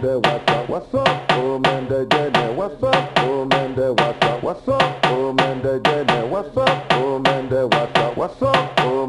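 Background music with a steady drum beat and a melody over it.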